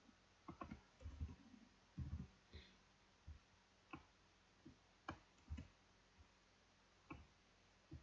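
Faint, irregular clicks of a computer keyboard and mouse as text is typed, deleted and selected, about a dozen short taps spread unevenly.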